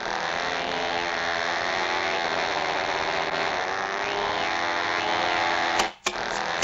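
Cartoon sound effect: a steady motor-like buzzing with many layered tones that starts abruptly, then breaks off about six seconds in with two sharp clicks.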